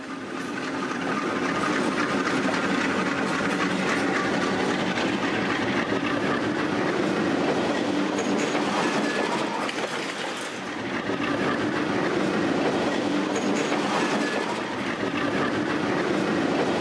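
Freight train passing close by, diesel locomotives and then loaded hopper cars running over the rails. The sound swells over the first two seconds, then holds steady, with a brief dip about ten seconds in.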